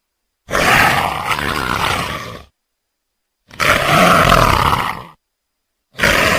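Big cat roaring: two separate calls of about one and a half to two seconds each, with a third beginning near the end, and dead silence between them.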